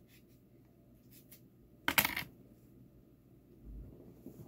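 Metal kitchen utensils being handled on a table: a few light clicks, then a sharp metallic clink about two seconds in, and a soft low bump near the end.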